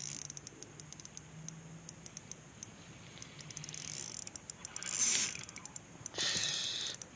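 Fishing reel ticking rapidly and unevenly while a hooked trout is played on light drag, with two short splashy bursts in the second half as the fish thrashes.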